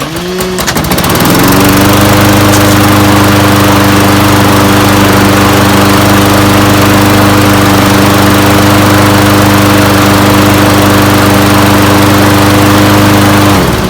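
Briggs & Stratton Quantum 190cc engine on a Toro Recycler 22-inch push mower starting up and climbing to speed within about a second and a half. It then runs at a steady speed, smoothly on fresh oil, and is shut off near the end, its pitch falling as it winds down.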